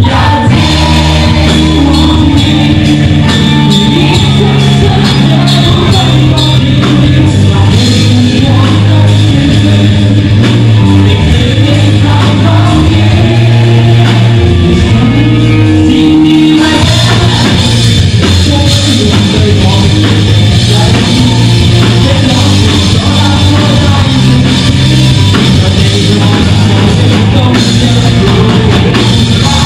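A live rock band playing, with electric guitars, bass guitar and a drum kit, and a singer singing a Cantonese lyric over it. The band sound turns brighter and fuller about halfway through.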